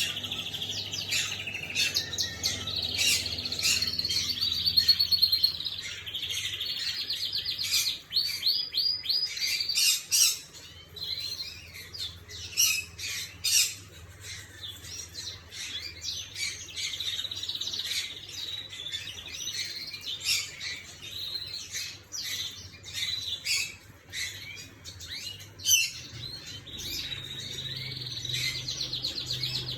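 Red-factor canary singing: long runs of rapid trilled notes and rolls, broken by sharp chirps, over a steady low hum.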